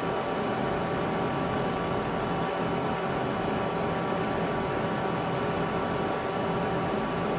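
A steady mechanical hum of several unchanging tones over an even hiss, like a fan or small motor running, with no distinct knocks or clicks.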